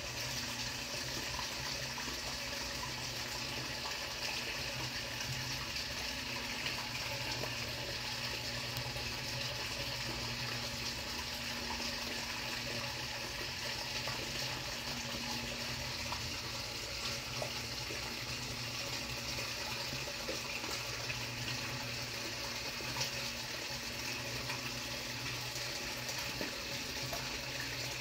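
Steady rush of running, splashing water with a low hum underneath, unchanging throughout.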